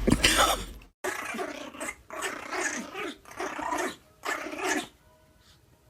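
A dog growling in four bursts, each a second or less long, after a short loud sound that cuts off abruptly about a second in.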